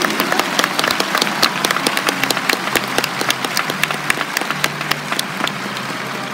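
Crowd applauding: many hands clapping, dense at first and thinning a little toward the end.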